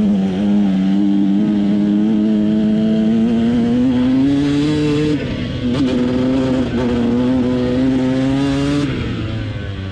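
KTM SX 125 two-stroke single-cylinder engine running hard under the rider. Its pitch climbs around four to five seconds in, drops suddenly just after five seconds, holds steady, then falls away near the end as the throttle comes off.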